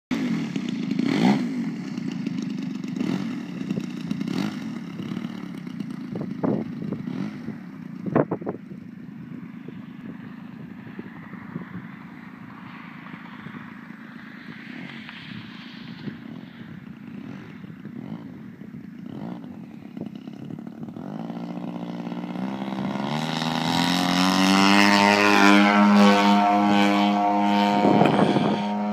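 Engine of a giant-scale RC aerobatic airplane running low and uneven at idle, with a few sharp knocks. About 21 seconds in it rises in pitch and loudness and settles into a steady high-power run as the plane takes off and climbs.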